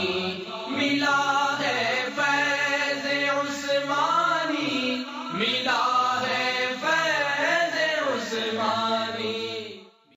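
A voice singing a devotional Urdu song in long, wavering, drawn-out notes over a low sustained backing, without instruments. It fades out near the end.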